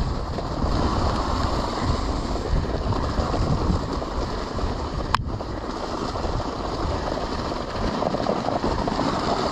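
Dog sled runners sliding over snow behind a running team of three Siberian huskies, with wind noise on the microphone; a single sharp click about five seconds in.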